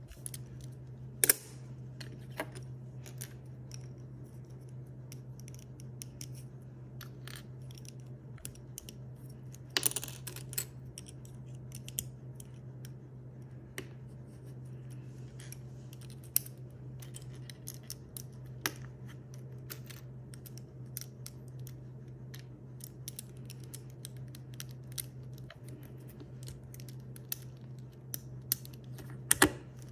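Plastic LEGO Technic pieces clicking and snapping as they are handled and pressed together, with scattered light clicks and a few louder snaps about a second in, around ten seconds and near the end. A steady low hum runs underneath.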